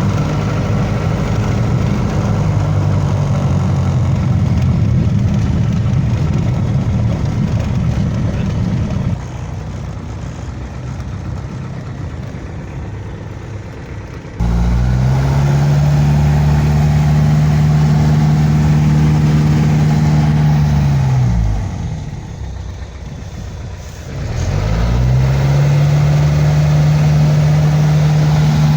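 A vehicle engine running with a steady low hum. About two-thirds of the way through its pitch falls away and it goes quieter for a couple of seconds, then it rises back to the same steady note.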